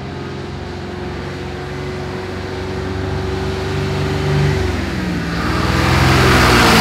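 Motor vehicle engine running on the road, its pitch dropping and climbing again about five seconds in, with the rushing road noise growing louder toward the end.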